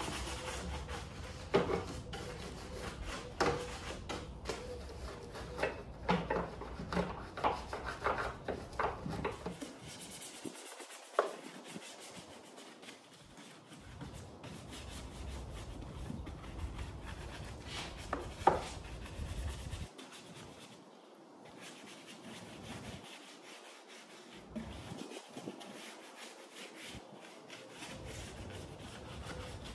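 A detailing brush scrubbing over foam-covered engine parts and plastic covers in short, rapid strokes, with a few sharper knocks of the brush against the plastic. The scrubbing is busiest for the first ten seconds or so, then comes in sparser, quieter strokes.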